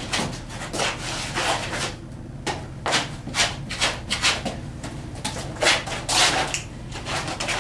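Shoes scuffing and sliding on a gritty concrete floor during dancing: a rapid, irregular run of short scrapes, loudest a little past the middle.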